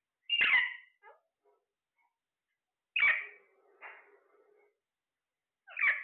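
Parakeets calling in a cage: three loud, harsh squawks a few seconds apart, with a few soft chirps between them.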